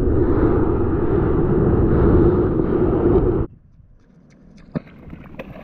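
Muffled, steady water rumble picked up by a camera held underwater, cutting off suddenly about three and a half seconds in. After that come a faint open-air background and a few sharp clicks.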